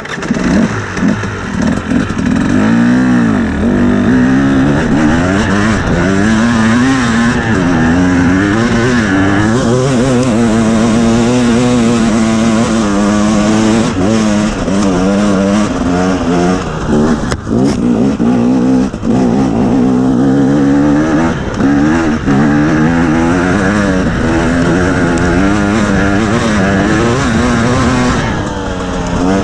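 2017 KTM 250 EXC's two-stroke single-cylinder engine running hard under load on a snowy hill climb, its pitch rising and falling every second or so as the throttle is worked. The engine eases off briefly near the end.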